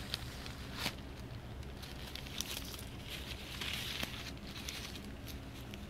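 A crumpled paper ball crinkling and rustling as it is handled, with a sharp tap a little under a second in and the loudest crinkling a few seconds in.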